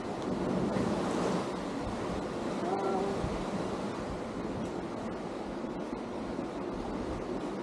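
Sea surf washing against a rocky shore, a steady rushing noise that swells briefly about a second in, with wind buffeting the microphone.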